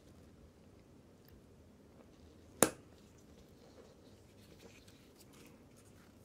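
A single sharp click about two and a half seconds in, from steel watchmaker's tweezers handling a tiny watch wheel, over faint handling noise.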